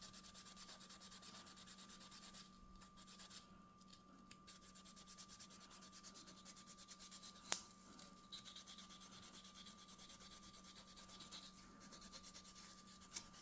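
Faint, rapid back-and-forth rubbing of a scouring pad over walnut revolver grips, scrubbing off the old finish, with a single sharp click about seven and a half seconds in.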